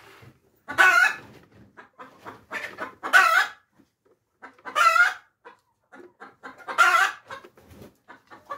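A chicken cackling: four loud squawking calls about two seconds apart, with short clucks in between.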